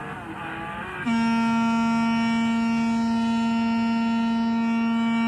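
Electronic horn of a coin-operated kiddie ride car held down: one loud, steady, unwavering buzzing tone that starts about a second in, lasts about four seconds and cuts off suddenly. Before it, softer wavering sound effects from the ride.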